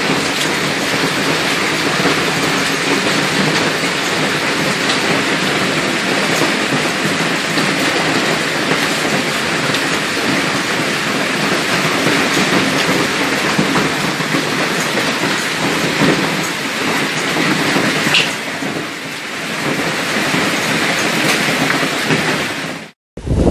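Heavy hailstorm: hailstones and rain pelting the ground, a loud, dense, steady hiss full of small sharp ticks. It cuts off abruptly near the end.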